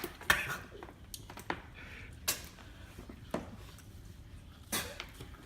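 A person gagging and coughing in short, separate fits after swallowing a spoonful of dog food.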